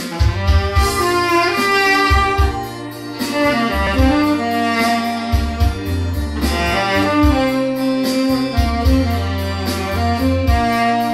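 Tenor saxophone on a metal mouthpiece, with no added effects, playing held melody notes over a backing track with a steady beat and bass.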